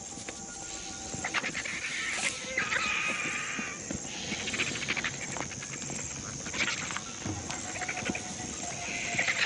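Hyenas squabbling over a carcass: bursts of rapid, pulsing calls about two to four seconds in and again near the end.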